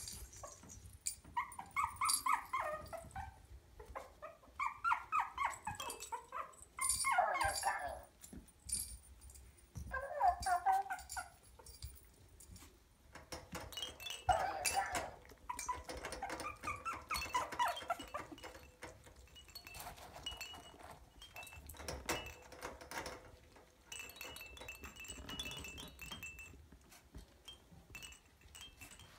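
Maltese puppy whining and yipping in short bursts, several in the first eighteen seconds and fainter after, with scattered light clicks.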